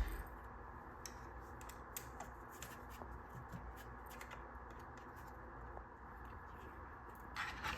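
Faint, irregular small clicks and scrapes of screws being turned out by hand to free a plastic transport-protection piece, over a low steady hum.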